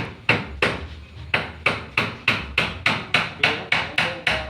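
Steady hand hammering: about three sharp blows a second, with a brief pause about a second in.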